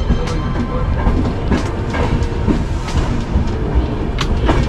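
Express train running at low speed, heard from an open coach doorway: a steady low rumble of wheels on track with irregular clacks as the wheels cross rail joints and points.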